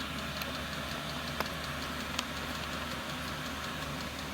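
An 8 kW 12 V all-in-one diesel air heater running, with a steady hum from its blower and burner and faint regular ticking. Two sharper clicks come about a second and a half and two seconds in.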